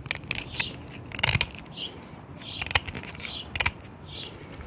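Hand metal snips cutting through taped stainless-steel braided hose: a series of sharp snips and crunches of the steel wire braid, the loudest just over a second in.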